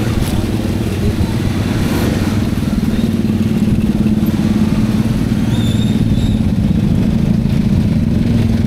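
Motorcycle engine running steadily at low revs, a continuous even hum amid the engines of surrounding traffic.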